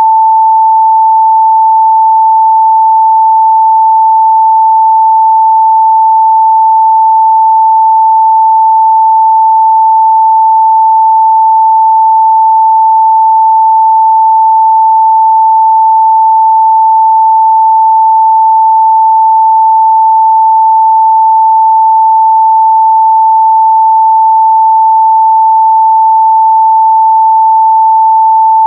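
A pure 885 Hz sine-wave test tone, held steady and loud at one pitch.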